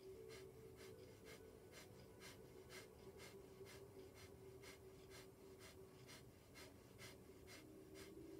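Breath of fire: rapid, even, forceful breaths through the nose, about three short puffs a second, faint, with a steady low hum underneath.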